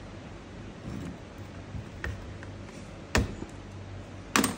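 Steel chain sprocket and hub being handled and set against a sheet-metal plate, giving metal-on-metal clacks: a light tap about two seconds in, then two sharp knocks about a second apart near the end.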